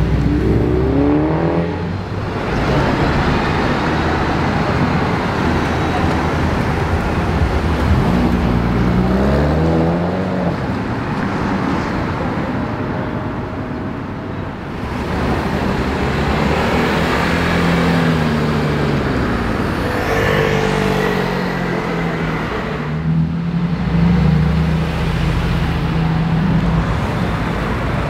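Luxury cars, among them a Mercedes-AMG G 63 and a Bentley Continental GTC convertible, driving off one after another with traffic noise. Their engine notes rise and fall in pitch as they accelerate, and the sound changes abruptly at several cuts between clips.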